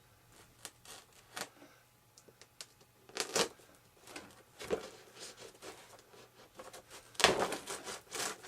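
X-Acto knife cutting and scraping through material: irregular small clicks and short scratches, with a longer, louder scraping stroke near the end.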